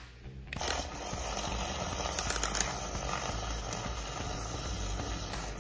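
Handheld milk frother switching on about half a second in, then a steady hissing whir as its spinning whisk churns liquid in a plastic cup.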